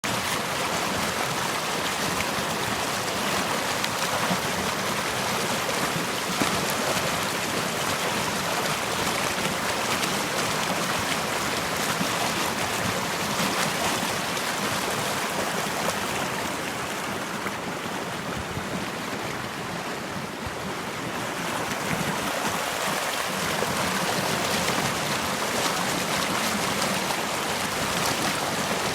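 Running water flowing steadily with an even rushing hiss, softening slightly about two-thirds of the way through.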